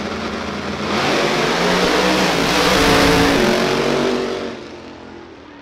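Drag racing cars at full throttle, accelerating down the strip with rising engine pitch. The engine sound is loudest about three seconds in, then fades away.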